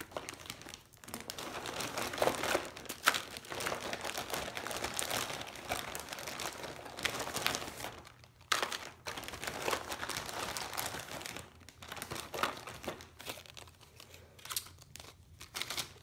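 Crinkly packaging being handled and opened: an irregular run of crackles and rustles with brief pauses.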